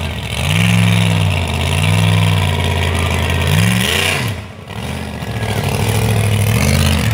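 Higher Education school-bus monster truck's engine revving in repeated rises and falls of pitch, easing off briefly about four seconds in before revving up again.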